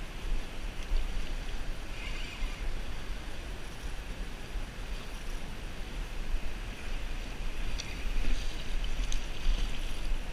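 Wind buffeting the microphone as a low rumble over the steady rush of river water, with a few crunching footsteps on gravel near the end.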